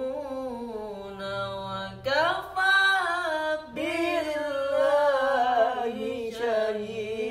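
A man singing an Islamic devotional song (sholawat) without words being picked out, in long held notes that slide and waver between pitches, pausing for breath about two seconds in and again near the four-second mark.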